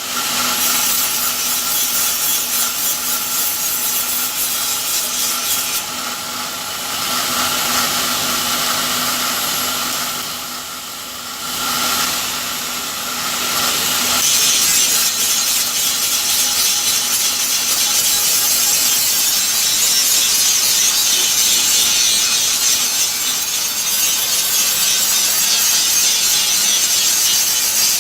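Continuous rasping, sawing-like noise of a tool working material in a workshop, with a steady hum under it that stops about halfway through.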